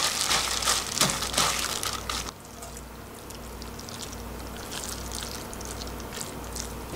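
Gloved hands squelching cold naengmyeon noodles through a wet gochujang sauce in a glass bowl, a busy wet crackling. It stops suddenly about two seconds in, leaving only faint light clicks of handling.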